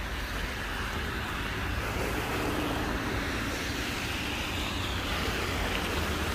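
Road traffic on a busy street: a steady rush of passing cars' tyres and engines, swelling a little over the first couple of seconds.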